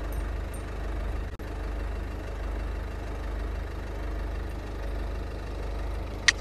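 A motor vehicle's engine idling, a steady low rumble with an even beat. Two short sharp clicks come near the end.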